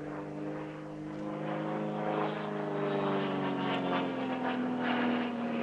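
Extra 300L aerobatic monoplane's propeller engine running in flight, a steady droning note whose pitch slowly falls.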